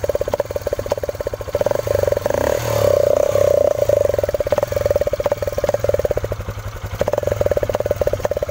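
Hero Glamour 125's single-cylinder engine running with its exhaust piped through a hose into a soft-drink can tied to the silencer, a homemade exhaust mod. The throttle is opened a little, so the rapid exhaust pulses swell louder about a second and a half in, ease off, and rise again near the end.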